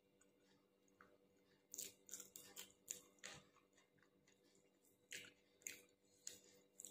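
A person chewing a mouthful of rice close to the microphone: a string of small wet clicks and smacks starting about two seconds in.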